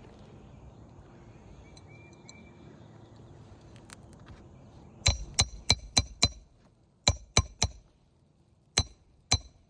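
Hammer driving roofing nails into a shingle: after a quiet start, about halfway in come five quick ringing strikes, then three more, then two, each with a sharp metallic clink of steel on nail head. The nails are going in easily.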